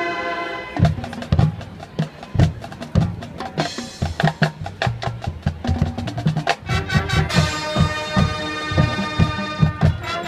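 High school marching band playing its field show: a held chord cuts off just after the start, leaving drums and percussion on their own for several seconds, and the full band comes back in with sustained chords over the drums about two-thirds of the way through.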